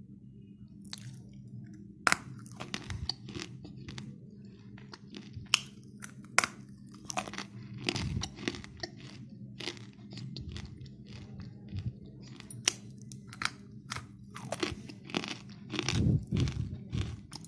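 Pieces of roasted clay being bitten and chewed: irregular sharp crunches starting about a second in, with a dense, loud run near the end, over a steady low hum.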